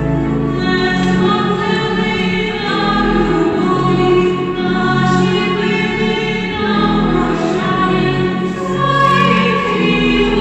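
Church choir singing a slow hymn in long held notes, the chords changing every second or so.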